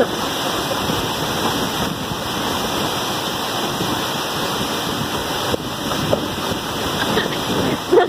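Waterfall pouring into its plunge pool close by: a steady rush of falling water.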